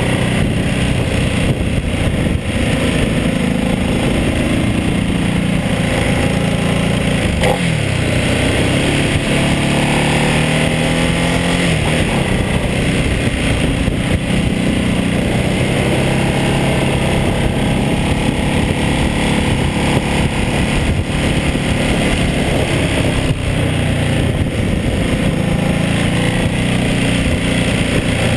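Ducati Multistrada 1200S L-twin engine running under way, heard from the bike's own mount. Its pitch drops about seven seconds in, then climbs again over the next few seconds.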